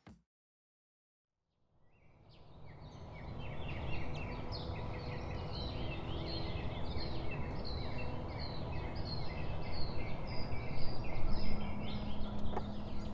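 Birds calling and singing, a dense chorus of short repeated chirps, fading in after about two seconds of silence over a steady low rumble of outdoor background noise. A low steady note comes in near the end.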